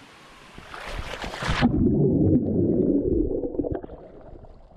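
Water splashing and rushing, then a sudden muffled rumble and bubbling of water heard underwater, lasting about two seconds, as the GoPro goes under the surface.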